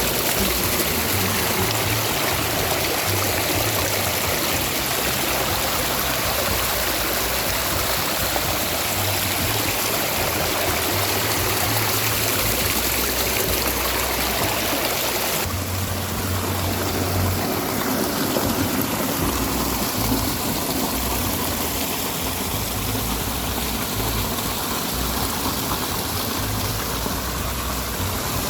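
Waterfall: a steady, loud rush of falling water, its tone shifting slightly about halfway through.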